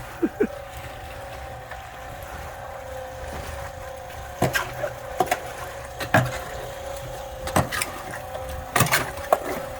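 Concrete being mixed and shovelled: scattered scrapes and knocks of a tool in wet concrete, the loudest a close pair near the end, over a steady machine hum.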